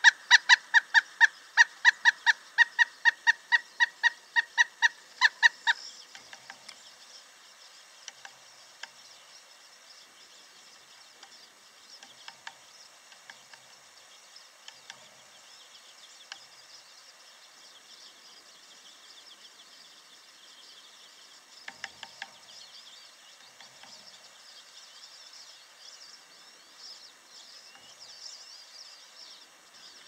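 Male pileated woodpecker hammering on a wooden suet log hung from metal balcony railings: a fast, even run of about three to four strikes a second. Each blow rings with a honk-like metallic tone, carried through the railings into the camera and its stabilizer. After about six seconds the hammering stops, leaving scattered faint taps and one short flurry of taps past the middle.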